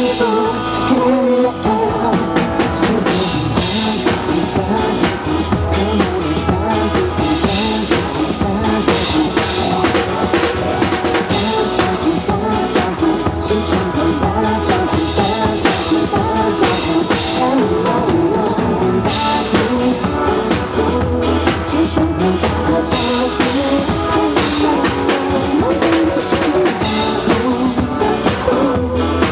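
Drum kit played along to a pop song with singing, kick and snare driving a steady beat with rimshots.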